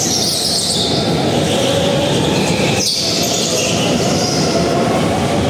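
Go-karts running on the track: a steady loud rolling noise with a high whine that rises and falls.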